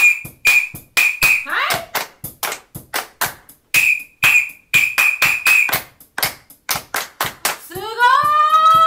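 Rhythmic hand clapping, about three claps a second, with a whistle giving groups of short blasts over it. Near the end a woman's voice rises in a long call.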